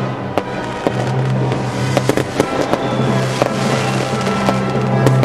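Fireworks going off in quick succession, sharp bangs and crackles, over background music with sustained low tones.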